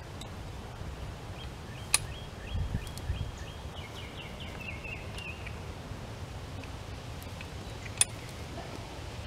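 Two sharp metallic clacks, about six seconds apart, from a farm jack as its handle is worked: the climbing pins catch on the steel bar while the jack pulls a fence post out by a chain.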